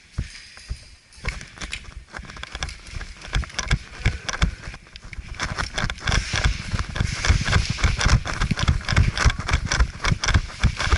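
Footsteps of an airsoft player running over ground, quick irregular strikes with gear rattling, picking up and getting louder about halfway through.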